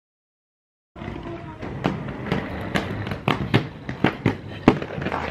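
Inline skates rolling on concrete: a rough rolling rumble broken by sharp, irregular clacks of the wheels and boots striking the pavement. It starts about a second in, after a moment of complete silence.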